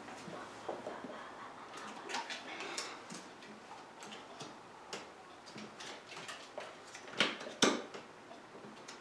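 Light, scattered clicks and taps of small tiles and cards being moved and placed on a letter-tile tray and a whiteboard, with two sharper clicks a little past seven seconds in.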